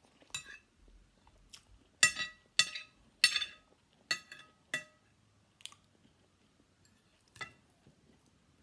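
Metal spoon clinking and scraping on a ceramic plate while scooping rice. A run of five sharp, ringing clinks comes between about two and five seconds in, with lighter taps before and after and quiet chewing between.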